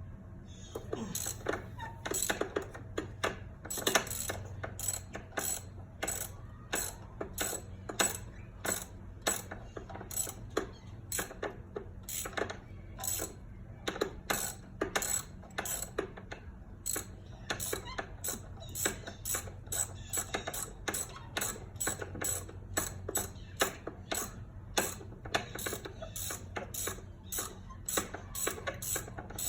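A hand ratchet clicking in quick runs of short, sharp clicks as it works a spark plug out of or into a cylinder head of a 2008 Mercury Grand Marquis V8.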